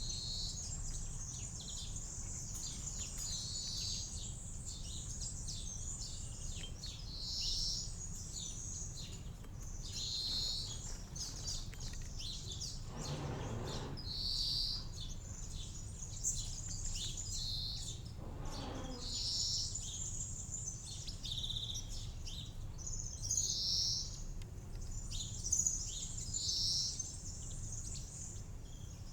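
Small garden birds chirping repeatedly in short high notes, over a steady low background rumble. Two brief whooshing sounds come about 13 and 18 seconds in.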